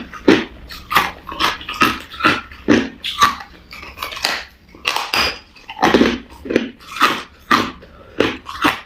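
Crushed clear ice crunched between the teeth in steady chewing, about two crunches a second.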